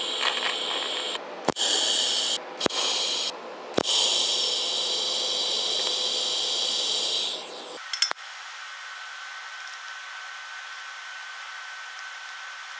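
TIG welding arc on steel brackets hissing in short bursts of tack welds, each started with a sharp click, the last burst running a few seconds. About eight seconds in it gives way to a steadier, quieter arc hiss with a thin high whine through it.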